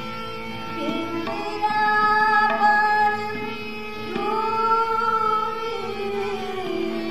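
A female Hindustani classical vocalist singing a thumri in two long phrases of held, gently bending notes, the second starting about four seconds in. Beneath the voice are a steady drone and light tabla accompaniment.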